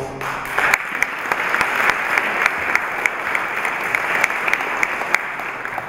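Audience applauding: dense clapping with a few sharper individual claps standing out, starting just after the speaker's voice breaks off.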